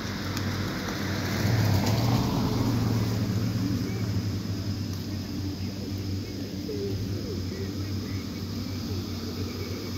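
Electric blower fans of inflatable yard decorations running with a steady low hum, a little louder about two seconds in.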